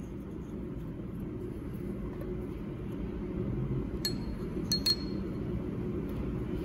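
A machined steel collar being fitted onto a rail drill's steel shaft, clinking against it three times about four to five seconds in, each with a short high ring. A steady low hum runs underneath.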